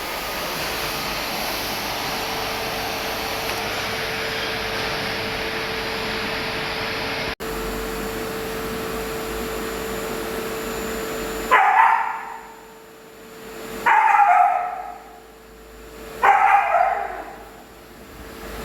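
Vacuum cleaner running steadily with a constant hum for most of the first eleven seconds. It then cuts out, and a Siberian husky gives three loud calls about two seconds apart, each sliding down in pitch.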